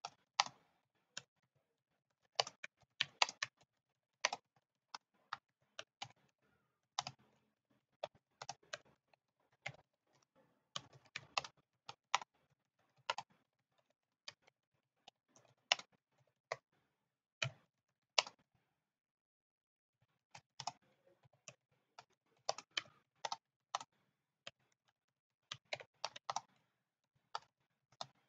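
Typing on a computer keyboard: faint, irregular key clicks in quick spurts, with a pause of about two seconds about two-thirds of the way through.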